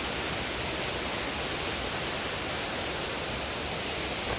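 Steady rushing of a fast-flowing creek, an even hiss-like roar of water.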